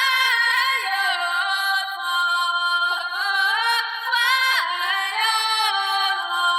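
A woman singing a slow melody of held notes that step and slide between pitches, with nothing underneath the voice.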